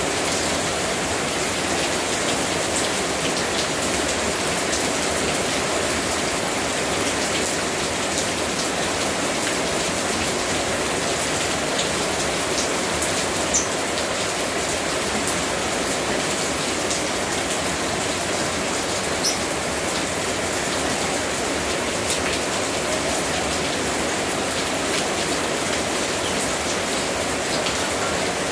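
Steady rain falling, an even hiss with scattered drop ticks and two sharper drop clicks, one about halfway through and one a few seconds later.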